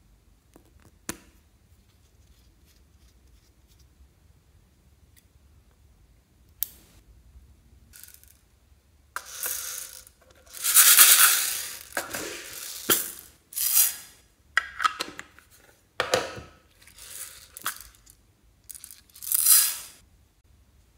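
Plastic makeup containers handled close to the microphone: a sharp click about a second in and another a few seconds later, then a run of rough scraping, crackling noises in short bursts, loudest near the middle.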